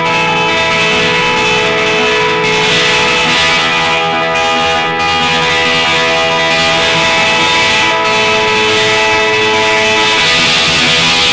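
Guitar instrumental music: a guitar playing long held notes over ringing chords, loud and steady, growing brighter and denser near the end.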